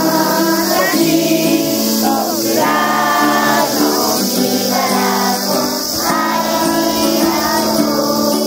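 A song sung by a group of voices together, choir-style, with held sung notes.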